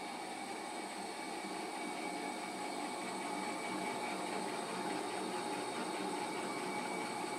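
BEcom BE-PM-60 60-quart planetary mixer running steadily with an empty bowl: a steady motor and gearbox hum with a faint, rapid, even ticking, growing slightly louder.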